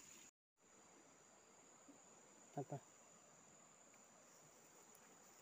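Faint, steady high-pitched insect chirring, cut by a brief moment of dead silence just after the start. About halfway through come two quick low knocks close together.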